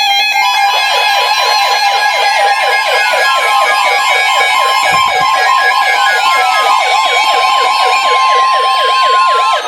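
NOAA weather radio warning alarm sounding together with receiver alarms: a steady 1050 Hz tone held for about nine seconds, a siren-like warble pulsing about six times a second, and slow falling tones every couple of seconds. This alarm announces a severe thunderstorm warning broadcast.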